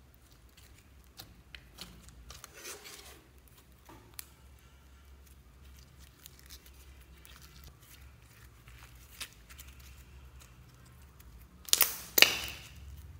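Thick slime being squeezed and kneaded by hand, with faint sticky clicks and crackles. Near the end it gives two loud, sharp pops as it is pressed between the fingertips.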